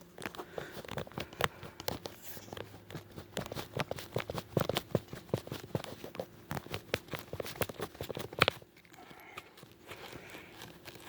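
Handling noise: quick irregular clicks, taps and light rustling as something is worked on by hand, with a sharper knock about eight and a half seconds in, after which it goes quieter.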